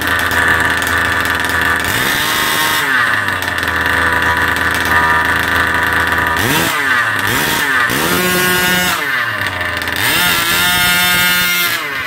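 Small petrol engine of a large-scale RC truck running far too loud, blipped up and down in several rev bursts. It is the engine's very first run.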